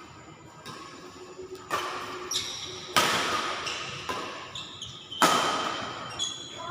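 Badminton rackets striking a shuttlecock in a rally: sharp hits a second or two apart, the loudest about three and five seconds in, with short high squeaks between them.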